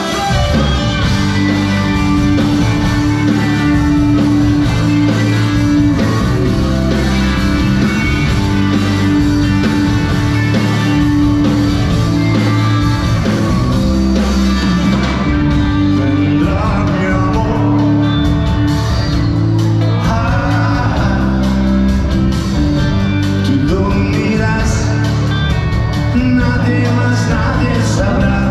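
Live rock band playing a song, with a male lead singer's voice over it, plainest in the second half.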